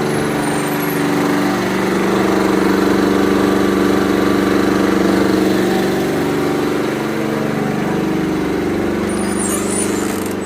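Backup generator's engine running steadily, an even drone with no change in speed.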